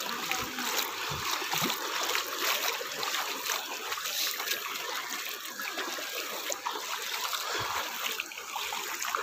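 Steady rushing and trickling of a flowing stream, with a few brief low thumps.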